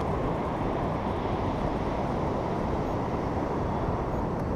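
Steady rumble of ocean surf on the beach, with wind on the microphone, even and unbroken with no distinct events.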